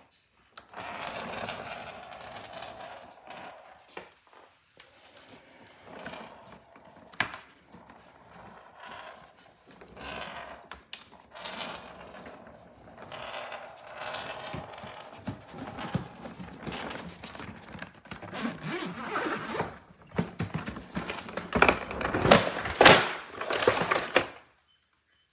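Zipper on the inner compartments of a hardside carry-on suitcase being pulled back and forth in repeated rasping strokes, with a few knocks from handling. The strokes get quicker and louder near the end and stop shortly before it finishes. These zippers are fitted backwards and zip in reverse, which makes them hard to work.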